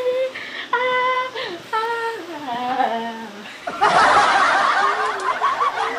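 A young woman laughing in drawn-out peals that step down in pitch. About four seconds in, a loud hiss comes in, lasts about two and a half seconds with a voice under it, and cuts off suddenly.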